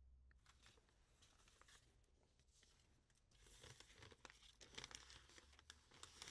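Near silence with faint paper rustling and a few soft ticks, mostly in the second half.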